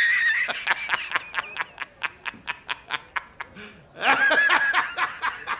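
A man laughing hard. A high, held cry breaks into a rapid run of "ha" pulses, about five a second, that slowly fade, and a second loud burst of laughter comes about four seconds in.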